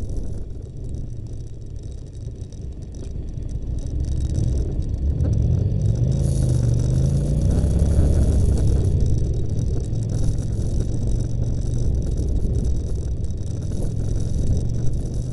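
Engine and road noise heard from inside a moving vehicle in traffic. The engine note rises as it accelerates from about four to eight seconds in, then settles into steadier running.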